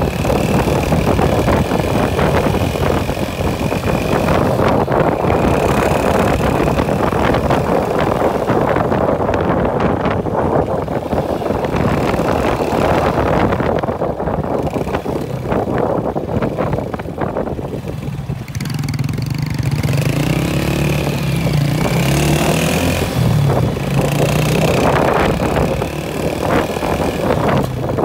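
Motorcycle riding over a rough road: a dense running rumble with road noise. About two-thirds of the way through, the engine note comes through more clearly, its pitch rising and falling with the throttle.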